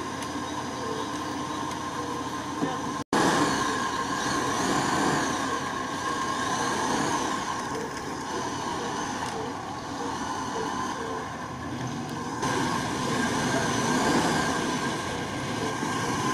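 Off-road vehicle engines running in the swamp during a winch recovery of a stuck UAZ-469, with a steady whine over the engine noise. The sound drops out for an instant about three seconds in.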